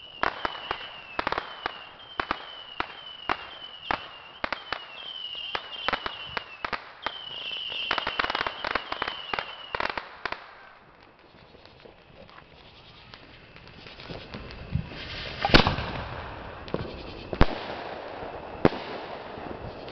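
Consumer fireworks going off. For about the first ten seconds there is a rapid string of sharp pops with short whistles about twice a second, building into dense crackling. After a lull come three loud aerial shell bangs, the first of them the loudest.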